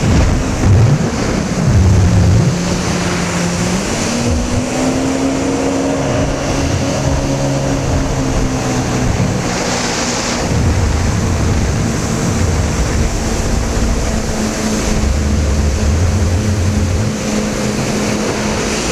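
Personal watercraft engine running under way, with water rushing along the hull. The engine note steps up about four seconds in, then eases back and holds steady.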